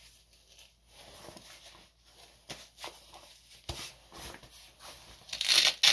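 Rustling and rubbing of a softshell tactical jacket's fabric as its pockets are handled, with scattered soft ticks and a louder, brief burst of rustling near the end.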